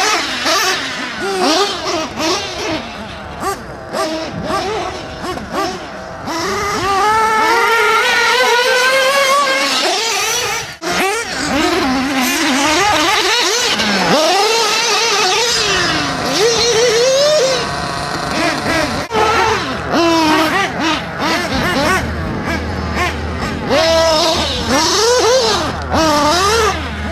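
Radio-controlled off-road race cars on a dirt track, their motors whining up and down in pitch over and over as they accelerate, brake and pass close by.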